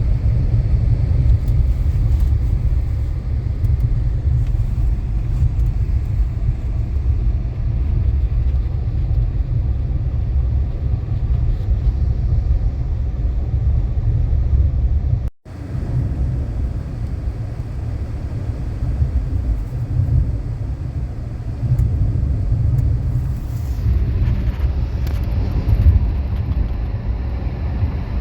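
Blizzard wind buffeting the microphone: a loud, heavy low rumble that rises and falls unevenly, cut off sharply and resuming about 15 seconds in.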